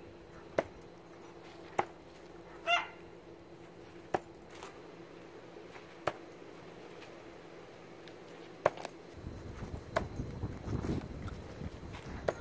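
Throwing knives striking wooden target boards: six sharp impacts a second or more apart. A brief animal call about three seconds in, and a rustling noise over the last few seconds.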